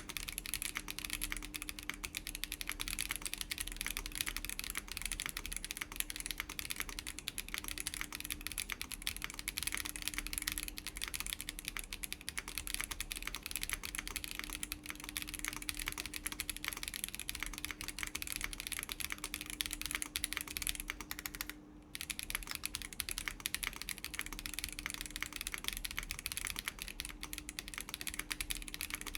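Continuous typing on a Chilkey ND104 mechanical keyboard with WS Breeze linear switches, an FR4 plate and PBT doubleshot keycaps: a dense run of keystrokes with one brief pause a little past the middle.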